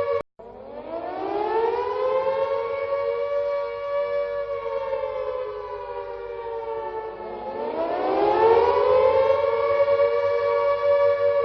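Air raid siren, many overlaid copies, rising from low to a high, slightly wavering wail that comes out as a thick stack of tones. It cuts out briefly near the start, and a fresh rising wind-up begins about two-thirds of the way through.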